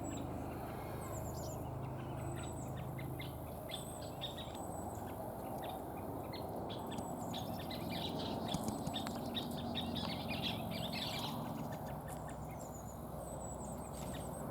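Scissor-tailed flycatchers calling: a busy run of short, sharp chips and chatter, thickest in the middle. These are the birds sounding off at a nearby American kestrel, which the uploader takes as alarm calls at a bird of prey.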